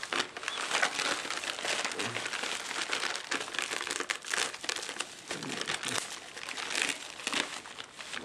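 Bubble wrap and a plastic courier bag crinkling and rustling as hands handle and unwrap a parcel, a dense run of small crackles.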